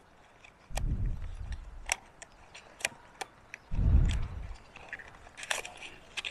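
Small cardboard and plastic packaging being handled and opened: scattered light clicks and crinkles as a battery box is pulled open. Two louder low rumbles come about one second and about four seconds in.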